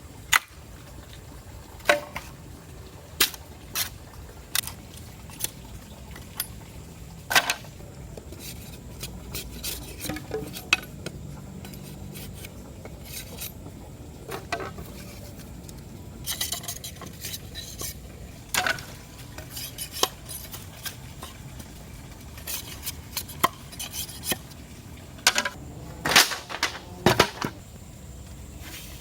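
Irregular clinks and knocks of metal cookware and utensils being handled, some in quick clusters of light ticks, over a steady low background hum of the surroundings.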